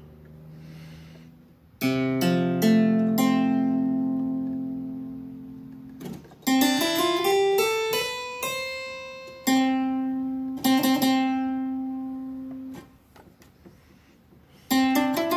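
Sperrhake harpsichord's 8-foot choir played alone in plucked notes and chords, demonstrating its divided buff stop. Chords start about two seconds in and ring out and fade, followed by a rising run, a few held single notes, and a quick up-and-down run near the end.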